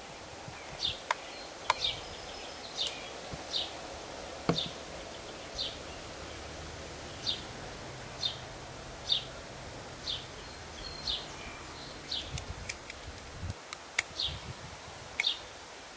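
A small bird repeating a short, high chirp about once a second, with a few sharp clicks over a faint background hiss.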